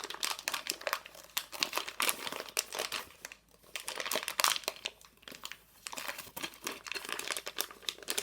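Plastic packaging crinkling and crackling in irregular bursts as it is handled and opened by hand, with a couple of short pauses.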